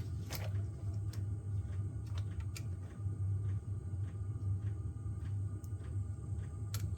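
Steady low hum with a few faint, scattered clicks and taps of small plastic laptop parts being handled as a ribbon cable is worked toward its connector.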